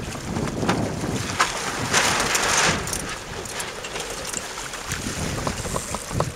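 Wind buffeting the microphone, with water splashing along a sailing dinghy's hull and a stronger rush of wind about two seconds in.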